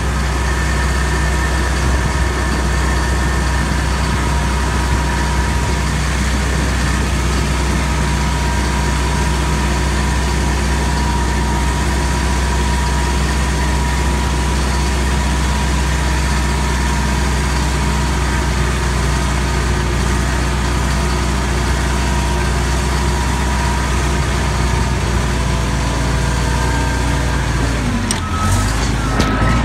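Vehicle engine running steadily, heard from inside the cab while driving through floodwater, with a brief dip and recovery in engine speed near the end.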